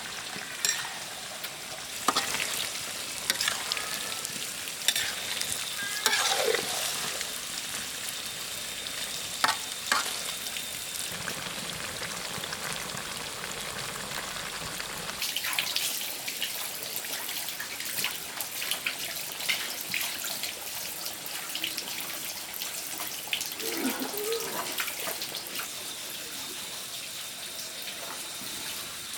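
Food frying in hot fat: a steady sizzle with scattered pops and crackles throughout.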